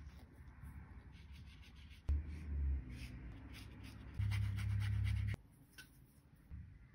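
Paintbrush loaded with gouache scrubbing across textured watercolour paper, a soft dry scratching of repeated short strokes. Twice the strokes are covered by a loud low rumble that starts and stops abruptly, briefly about two seconds in and for about a second around the middle.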